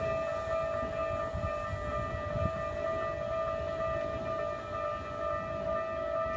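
Railway level crossing warning bell sounding, a steady ringing tone at one pitch, over a low uneven rumble.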